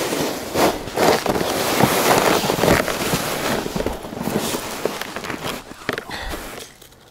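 Close rustling, scraping and crunching as a person handles ice-fishing gear and shifts on snow: a busy string of short scrapes and knocks that dies down a little before the end.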